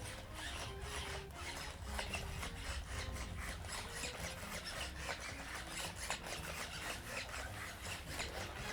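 Sony Aibo ERS-7M1 robot dog moving about, with a steady run of irregular clicking and rasping scrapes from its plastic paws and body, as it goes after its bone toy.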